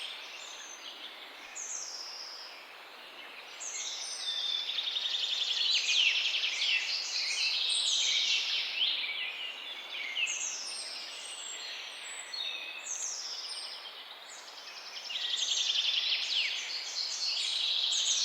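Several small birds chirping and trilling together, many quick high-pitched calls overlapping, swelling louder twice.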